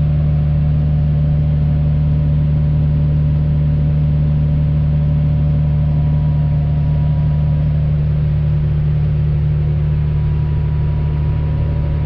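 Tractor engine heard from inside its cab: a loud, steady, even drone with a strong low hum.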